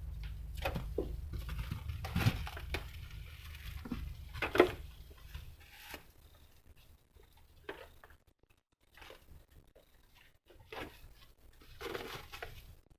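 Rustling and scratching with scattered soft knocks, as of cats moving about in their bedding, with a sharper knock about four and a half seconds in. A low rumble runs underneath for the first half, then the rustling thins to occasional faint scuffs.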